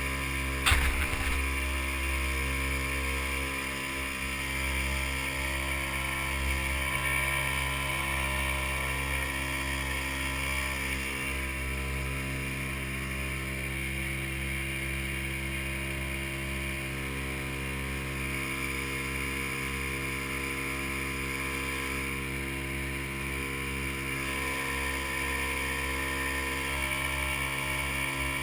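A small motorboat's engine running at a steady speed under way, with wind and water hiss over it. A single sharp knock under a second in.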